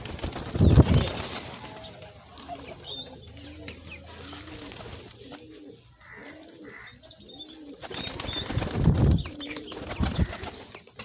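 Domestic pigeons cooing in a run of repeated low calls, with loud bursts of wing flapping about a second in and again near the end.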